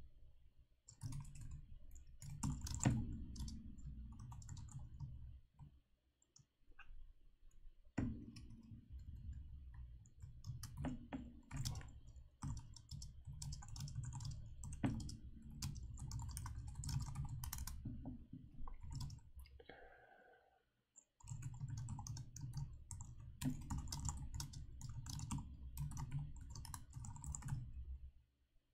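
Typing on a computer keyboard: quick runs of keystrokes, pausing twice, once about a quarter of the way in and again about two-thirds through.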